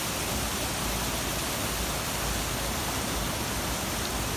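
Steady rush of water pouring through an old timber dam, an even hiss with no breaks.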